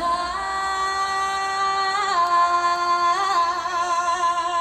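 A female lead singer holds one long note, sung live, on the word "side". The pitch steps up slightly about two seconds in and wavers with vibrato near the end.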